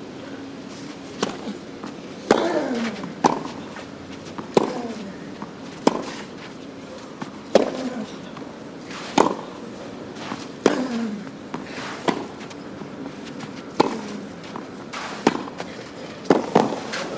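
Tennis ball struck back and forth with rackets in a long baseline rally on a clay court, a crisp hit about every second and a half. Several hits are followed by a player's short falling grunt. Applause breaks out as the point ends.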